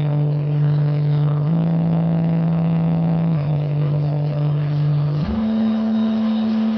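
Large outdoor PA sound system playing sustained low synth bass notes during a sound check, each note held for about two seconds before stepping to another pitch.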